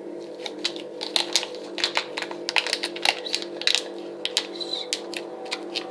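Quick, irregular clicking and tapping of hands handling Play-Doh and plastic pieces on a tabletop.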